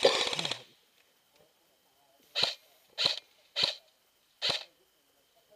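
An airsoft gun firing a rapid full-auto burst that stops about half a second in. Then come four short hissing puffs, each under half a second.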